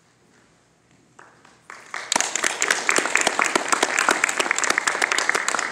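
Audience applause, which starts about two seconds in after a near-quiet pause and goes on as dense, steady clapping.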